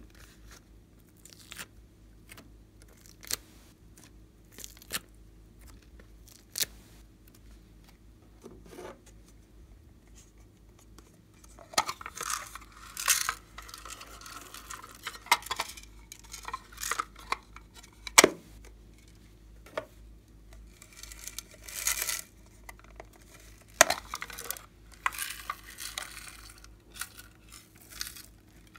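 Close handling of plastic: scattered light clicks and taps, then two stretches of crackly tearing and crinkling as a thin pink plastic mould is peeled apart, with a few sharp knocks.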